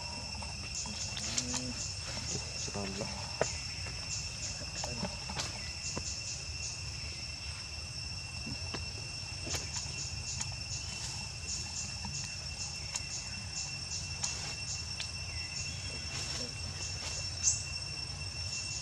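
Insects chirping: a steady high-pitched trill with rapid pulsed chirps coming in runs, over a low steady rumble, with scattered faint clicks.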